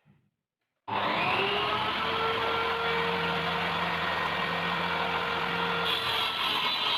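A power tool's motor running steadily, cutting in abruptly about a second in with a constant whine, its tone shifting slightly near the end.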